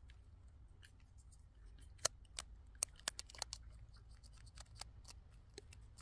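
A quick, irregular string of faint sharp clicks and crackles over a low steady rumble. The loudest clicks come about two seconds in and around three seconds in.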